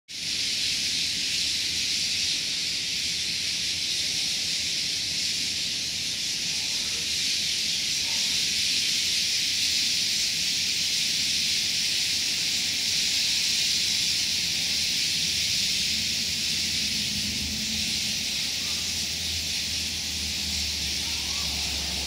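Dense, continuous chattering din of thousands of white-cheeked starlings gathering at a roost, blending into one steady high-pitched hiss.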